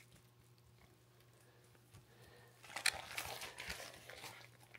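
Faint rustling and crinkling of plastic packaging as vacuum-sealed meat packs are handled, with small clicks, coming in about halfway through after a near-silent start.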